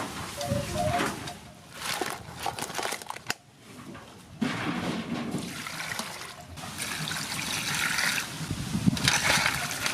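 Water splashing and trickling as crabs are washed and cleaned by hand, breaking off briefly about three and a half seconds in.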